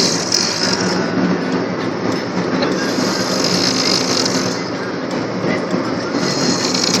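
A man snoring loudly, with a harsh hissing breath that swells about every three seconds over a steady rumbling noise.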